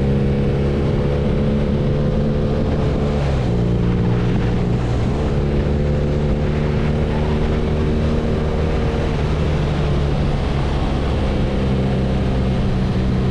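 BMW R nineT's 1170 cc air/oil-cooled boxer twin running steadily under way, with wind rushing past. Its pitch dips about three and a half seconds in and climbs back about two seconds later.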